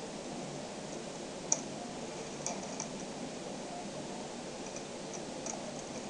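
Small magnetic balls clicking against one another as they are pulled apart and snapped together by hand: a few scattered sharp ticks, the loudest about one and a half seconds in, over a steady hiss.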